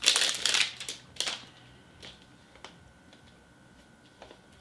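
Plastic candy packaging crinkling and clicking as it is handled and pried at, still held shut by tape. A loud crinkle at the start, another about a second in, then a few faint clicks.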